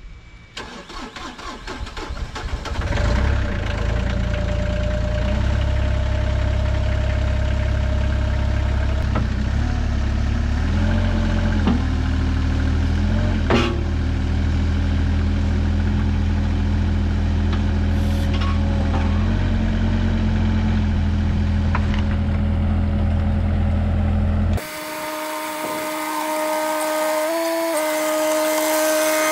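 Cat 303 CR mini excavator's diesel engine cranked by the starter, catching about three seconds in and then running steadily, its pitch shifting a few times as it is worked. After an abrupt change near the end the machine runs with a steadier, higher tone.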